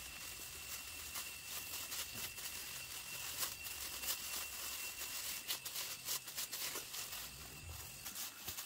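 Thin plastic food-prep gloves crinkling and rustling in quick, irregular crackles as gloved hands press and shape sticky rice dough into cakes.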